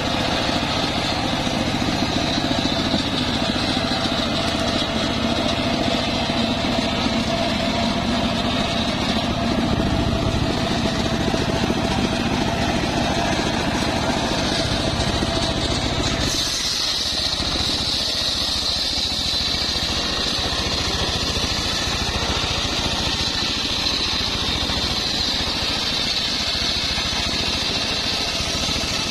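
Homemade circular sawmill running, its engine-driven blade cutting through a trembesi log: a steady engine drone under a high blade whine. About sixteen seconds in the sound changes abruptly, the low drone falling away and the whine growing stronger.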